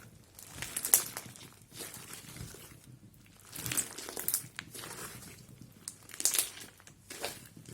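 Crunchy slime being squeezed and kneaded by hand, crackling and crinkling in irregular bursts a few times.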